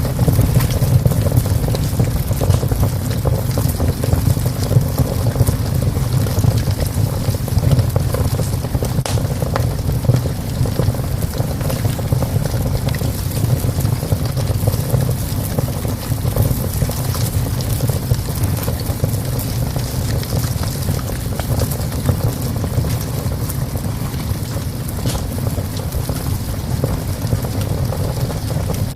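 Wood fire burning in a small stove: a steady low rumble with a few scattered sharp crackles.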